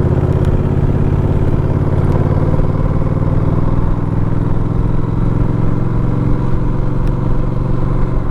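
Motor vehicle engine running at a steady speed while driving, a constant low drone.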